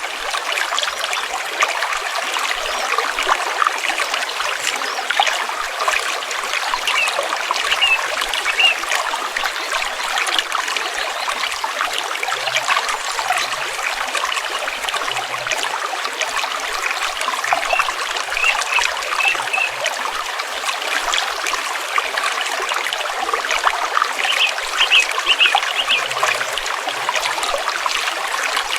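Stream water flowing and trickling steadily over rocks, with a few short high bird chirps now and then.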